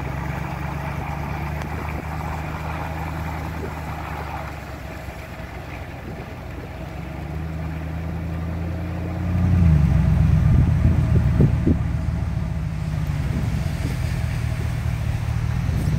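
A car driving along, with the steady low hum of its engine and road noise. The hum grows louder about nine seconds in.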